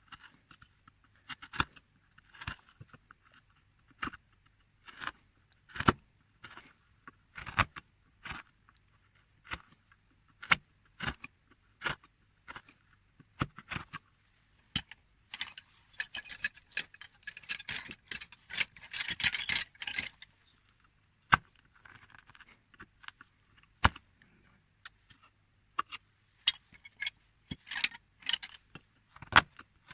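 Irregular sharp clicks and taps of a hand carving tool working a small carving, with a few seconds of steady scraping about halfway through.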